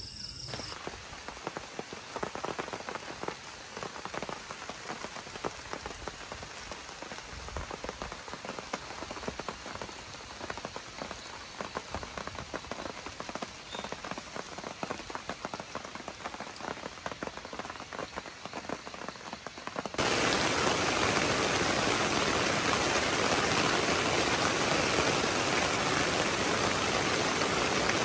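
Rain pattering on a surface, a dense irregular patter of drops. About twenty seconds in it cuts suddenly to a louder, steady rush of running water.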